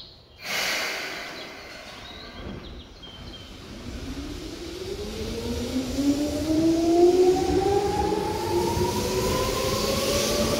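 Seibu 2000 series electric train pulling away: a sudden burst of noise about half a second in, then the traction motors' whine climbing steadily in pitch as the train gathers speed, with running noise growing louder.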